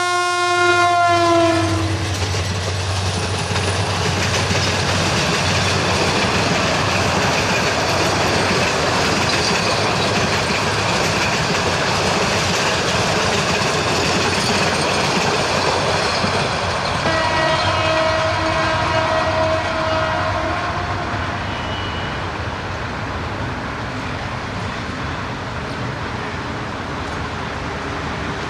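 Broad-gauge diesel locomotive's horn sounding as the train passes, its pitch dropping as the engine goes by. Then comes the steady noise of a long rake of passenger coaches' wheels running on the rails. A horn sounds again, fainter, for a few seconds about two-thirds through, and the train noise eases toward the end as the train recedes.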